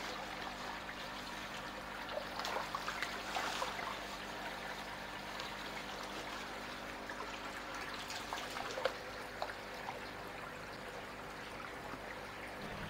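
Pond water trickling steadily, with a few light splashes and drips as a koi in a net and handling bag is lifted from the water into a measuring tub. A faint steady hum runs underneath.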